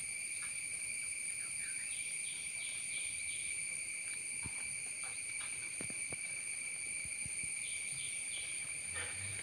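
Steady high-pitched insect chorus, an unbroken trill, with a few faint short chirps over it in two brief clusters, one early and one near the end.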